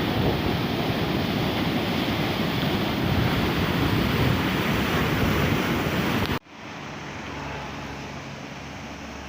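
Rushing river water: a steady, loud wash of noise that cuts off suddenly a little over six seconds in. A quieter low, steady hum follows.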